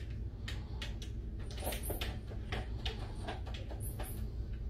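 Cats' paws tapping and batting against a TV screen: about a dozen light, irregular taps over a low steady hum.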